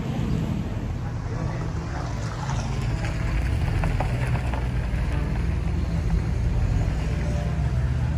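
Uneven low rumble of wind on the microphone.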